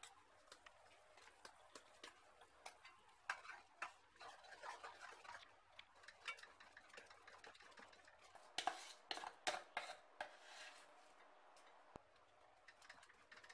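Faint clinks and scrapes of a spoon against a heavy-bottomed kadai as ground coconut and cashew paste is scraped into hot sugar syrup and stirred. The clinks come scattered, with a busier run a little past the middle.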